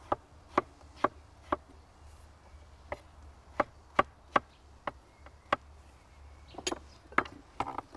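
Chef's knife slicing strawberries on a wooden cutting board: sharp knocks of the blade hitting the board, about two a second, with a short pause partway through. Near the end come a few rougher, longer scrapes.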